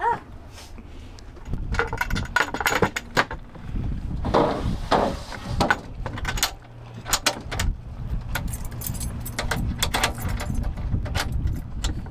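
Keys jangling with a quick run of clicks, clinks and knocks, typical of a sailboat's hatch and lock being closed up. A steady low hum joins in about six seconds in.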